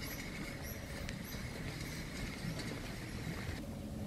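Low, flickering rumble of wind buffeting a handheld camera's microphone as the person walks, with a faint steady high tone that cuts off near the end.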